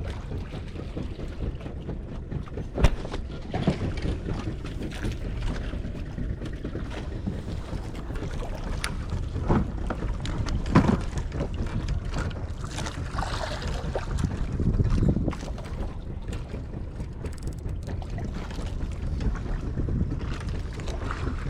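Wind rumbling on the microphone aboard a small fishing boat at sea, with a few sharp knocks now and then.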